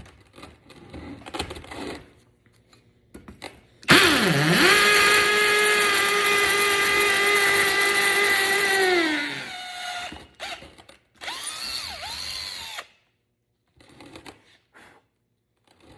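Cordless drill motor spinning up with a quick dip in pitch, running at a steady high whine for about five seconds, then winding down; a quieter, shorter run follows about a second later, with light handling clicks before and after.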